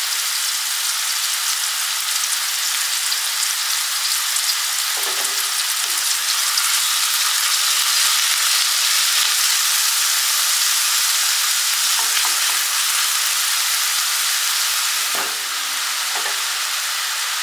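Chopped onion sizzling steadily in olive oil in a nonstick frying pan, salted to help it sweat and soften, while a silicone spatula stirs it and knocks lightly against the pan a few times.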